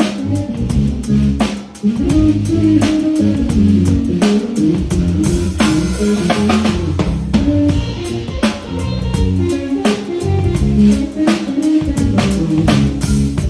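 Live jazz band music: drum kit, bass and guitar playing together under an instrumental solo, with a brief drop in level a little under two seconds in.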